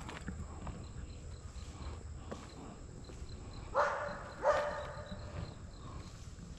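A dog barking twice in quick succession about four seconds in, over a faint steady background.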